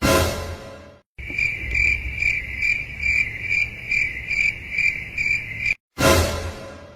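Cricket chirping, an even pulse of about two to three chirps a second. It sits between two sudden hits that ring and fade over about a second, one at the start and one near the end.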